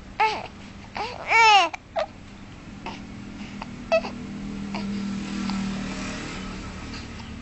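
Baby hiccuping and making little squeaky voiced sounds: one short one near the start, a louder, longer squeal about a second and a half in, and single short hiccups around two and four seconds. A low hum sits underneath in the middle.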